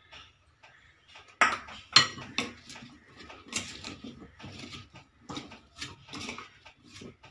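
Spoon clinking and scraping against bowls as flour is added to raw potato strips, with two sharp clinks about a second and a half in, then stirring and scraping in a glass mixing bowl as the potatoes are coated.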